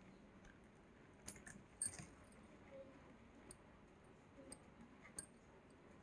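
Faint, scattered clinks and clicks of a micro gold-plated necklace's beads and pendant being handled, a few small metallic jingles over near silence.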